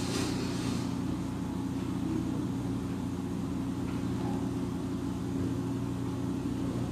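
Steady low mechanical hum with several pitched tones, with a brief soft hiss near the start.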